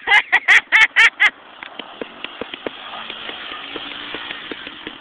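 A burst of loud laughter, about six quick 'ha's in the first second and a half. Then a quad's engine runs steadily and more quietly, with scattered light clicks.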